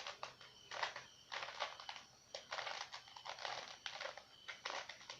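Plastic Rubik's cube being twisted by hand: several quick runs of layer turns, each a short burst of clicking, scraping plastic.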